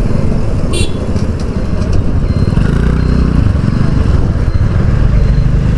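Motorcycle engine running on the move, with wind noise rushing over the microphone.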